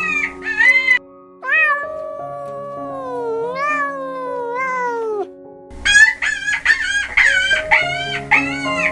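A cat meowing in one long, wavering call that falls in pitch, over background music with sustained notes. It is followed by a quick run of short, high-pitched calls from another animal.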